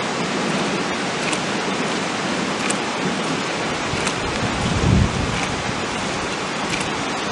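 Steady hiss of rain during a thunderstorm, with faint scattered clicks and a brief low rumble about five seconds in.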